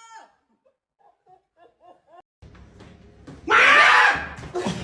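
After two seconds of near quiet, a person screams loudly in fright for under a second, about three and a half seconds in. Laughter follows.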